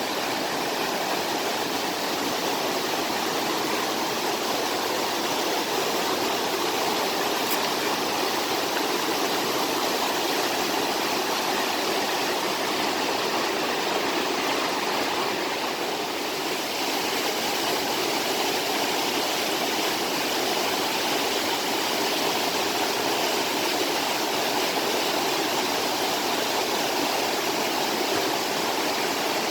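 Mountain stream rushing steadily over rocks in a valley, a constant even rush of water.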